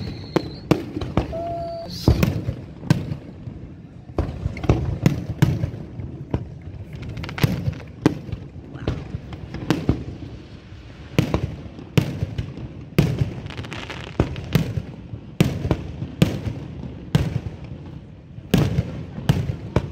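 Fireworks going off in a steady series of sharp cracks and booms, several in quick succession at times, with rumbling between the bursts.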